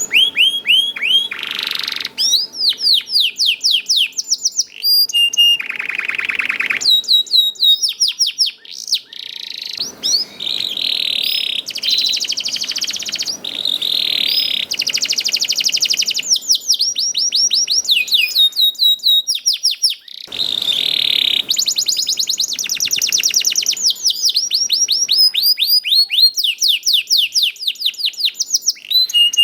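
Domestic canary singing continuously: rapid rolling trills alternating with runs of quick falling chirps, switching phrase every second or two.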